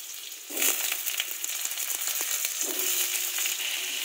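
Raw potato pieces going into hot oil in a steel kadai and frying. The oil sizzles and crackles steadily, with a sudden louder surge about half a second in as more pieces drop in, and a few light clicks after.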